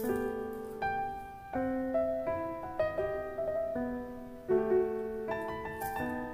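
Background piano music: single notes and chords played at an unhurried pace, each note fading away.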